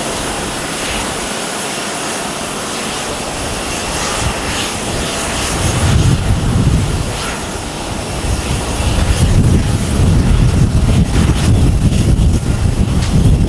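Jet engines of a Boeing 777-200ER airliner rumbling as it rolls out along the runway after landing, a steady roar whose deep rumble swells about halfway through.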